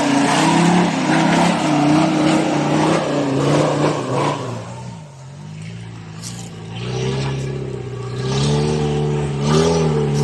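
Off-road 4x4's engine pulling under load, dropping off about halfway through, then revving up again and held at higher revs.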